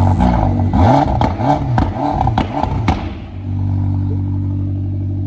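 Car engine revved in about six quick throttle blips, pitch rising and falling each time, then settling to a steady idle about three seconds in.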